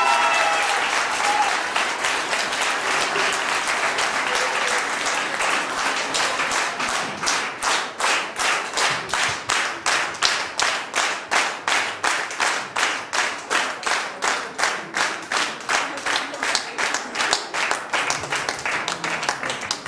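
Audience applauding, the scattered applause turning after about six seconds into rhythmic clapping in unison, nearly three claps a second.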